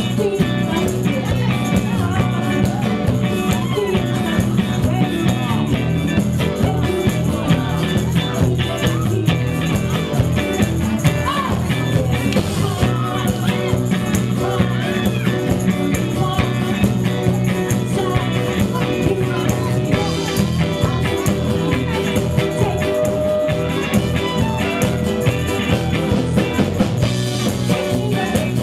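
A live dance band playing an upbeat number, with drum kit, bass, a horn section and singers.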